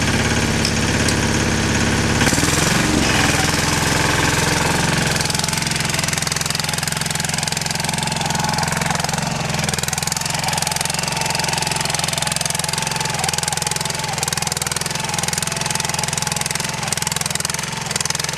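Yağmur YET-510 motor hoe (rotary tiller) engine running under load as its tines churn garden soil. The engine note shifts about two seconds in, then holds steady.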